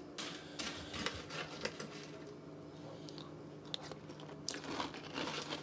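A person chewing a mouthful of crunchy cereal close to the microphone: a run of irregular crunches.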